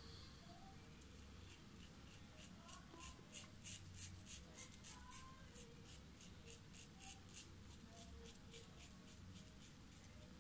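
Muhle R89 safety razor scraping through lathered beard stubble in a quick run of short strokes, about four a second. The strokes are faint, begin about a second in and stop about three-quarters of the way through.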